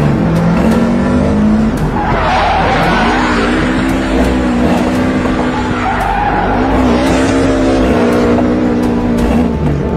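Ford Mustang V8 held at high revs through a burnout, the spinning rear tyres squealing on the pavement. The revs dip and climb back a few times.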